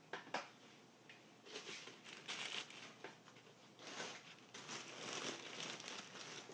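Hands handling materials up close: two quick clicks near the start, then two longer bursts of crinkly rustling and scraping.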